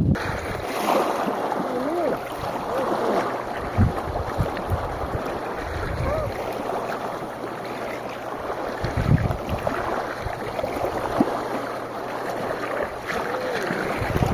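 Wind blowing across the microphone as a steady rushing noise, with a few low gusts buffeting it about 4, 9 and 11 seconds in.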